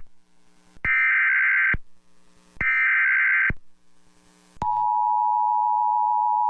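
Emergency Alert System SAME header: two harsh digital data bursts, each about a second long with a second's pause between them. About four and a half seconds in, the steady two-tone EAS attention signal begins, announcing a weather warning.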